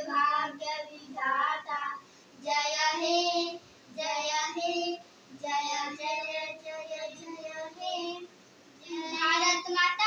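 Young boys singing together without accompaniment, in sung phrases of a second or two separated by short pauses for breath.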